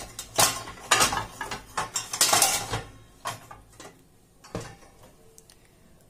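Wire dish rack of a Bosch SMS66GW01 dishwasher, loaded with steel plates and pans, being pushed back into the tub: the metal dishes rattle and clink against the rack, most densely in the first three seconds, then a few single clicks.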